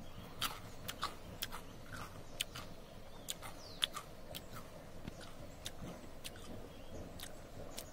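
A person chewing a bite of a peeled, sour wild plant stalk close to the microphone: irregular soft crunching clicks.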